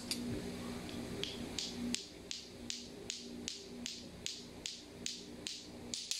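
Lato-lato clackers: two plastic balls on a string knocking together in a steady rhythm, about two and a half clacks a second, starting about a second in.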